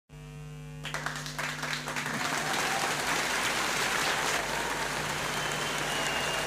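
Large crowd clapping and cheering, building up over the first couple of seconds into steady, dense applause. A short steady hum sounds underneath at the very start.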